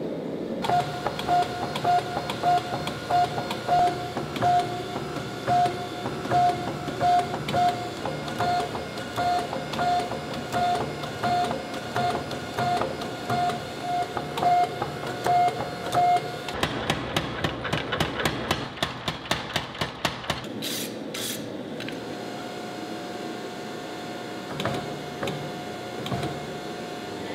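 Power hammer forging a red-hot dagger blade between its dies: single blows about twice a second, each with a short ringing tone. Just past halfway, a fast run of blows follows, then two brief hisses.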